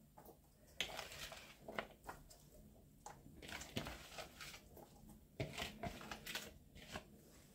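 Faint, irregular crunching and clicking of sliced onions being mixed by hand.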